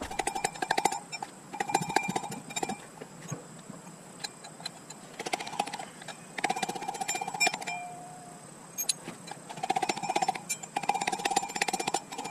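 Hand tools working on a dirt bike's rear sprocket nuts and their locking nut stays: rapid metallic clicking and tapping in bursts of about a second, repeated several times with short pauses between.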